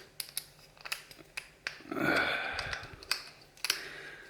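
Small sharp metal clicks and taps from a Mul-T-Lock padlock and its parts being handled as it is taken apart, with a brief louder rasp about two seconds in.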